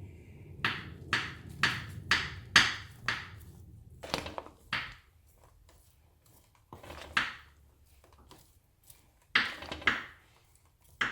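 A spoon mixing chickpea chaat in a bowl: short knocks against the bowl, about two a second for the first few seconds, then fewer, with pauses between.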